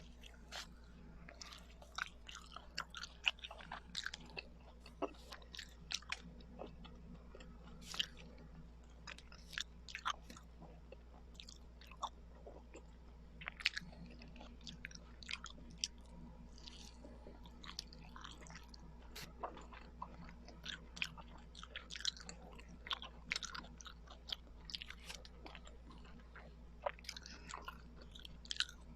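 Close-miked chewing of kakanin, Filipino rice cakes: irregular mouth clicks and smacks, several a second, with occasional louder bites.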